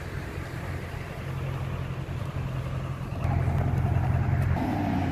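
Aston Martin DBX's twin-turbo V8 running at low revs as the SUV creeps along, a steady low rumble that gets louder about three seconds in.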